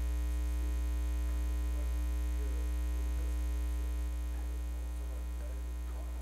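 Steady electrical mains hum, a low drone with an even buzz of overtones above it, with nothing else standing out.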